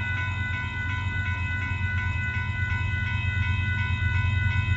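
Railroad grade-crossing warning bell ringing in a steady rhythm of just under two dings a second, over the low rumble of an approaching diesel freight train that grows slightly louder.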